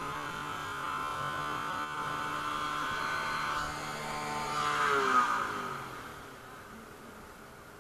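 Motorcycle engine running at a steady note. About five seconds in a louder rush of engine and road noise peaks, then the engine note falls in pitch and fades, leaving a faint hum.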